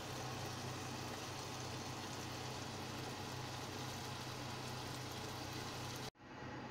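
Chopped beef searing in a pan on an induction cooker: a steady sizzling hiss over a low hum, which cuts off abruptly near the end.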